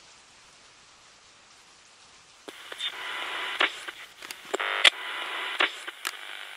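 Faint hiss, then about two and a half seconds in a walkie-talkie radio transmission starts: a tinny, buzzing signal broken by several sharp clicks.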